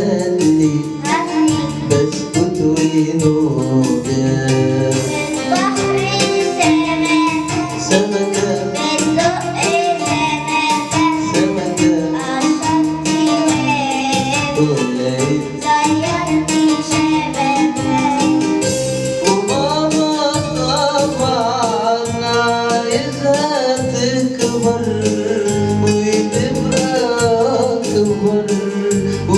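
A song with a sung melody over a steady beat, with percussion such as a tambourine.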